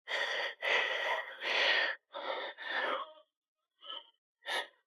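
A man breathing hard in quick, forceful breaths, about two a second, from the strain of a heavy set of pendulum squats. The breaths ease to two fainter ones near the end.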